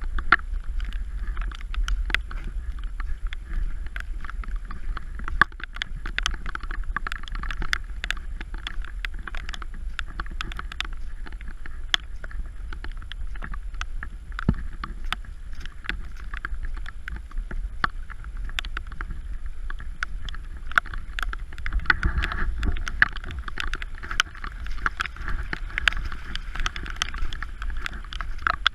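Heavy storm rain falling, a steady hiss thick with sharp drop impacts, over a low rumble of wind on the microphone.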